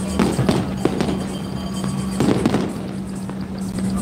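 Aerial fireworks shells bursting with repeated sharp bangs and crackle: a quick cluster in the first second, another pair about two seconds in, and a heavier bang right at the end.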